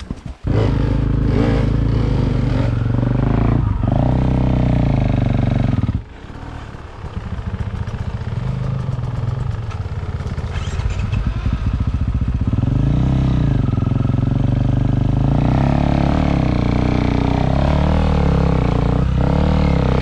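Dirt bike engine running and revving under load. It comes in suddenly just after the start, cuts back sharply about six seconds in, then builds up again with repeated rises and falls in revs.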